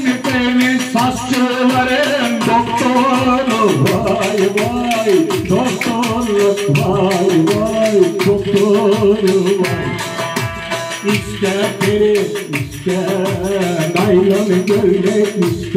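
Bağlama (long-necked Turkish lute) strummed in a fast, even rhythm, with a man's voice singing a melody over it.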